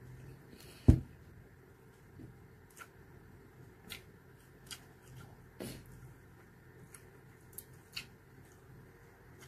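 Close-up eating sounds: chewing and scattered small wet clicks from mouth and fingers on food, with one loud low thump about a second in.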